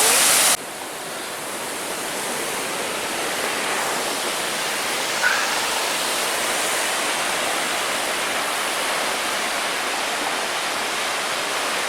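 Waterfall: water pouring and splashing in a steady, loud rush. About half a second in, the sound drops abruptly and turns duller, then holds steady.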